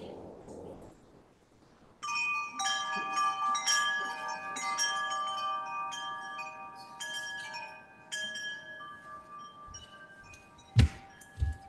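Set of chimes rung with many quick, irregular strikes starting about two seconds in, several clear pitches ringing and overlapping, then dying away. A loud thump near the end.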